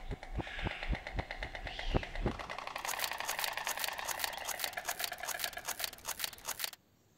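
White storks clattering their bills at the nest: a rapid wooden rattle of clicks, about ten a second, with low thumps in the first couple of seconds. It cuts off suddenly near the end.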